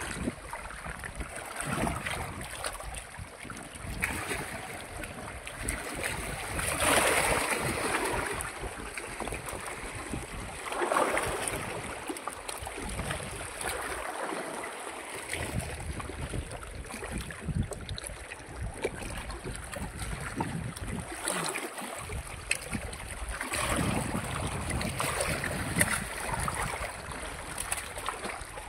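Wind rushing over the microphone, with small waves lapping against the rocky shore; the wind swells louder about 7 and 11 seconds in, and again near the end.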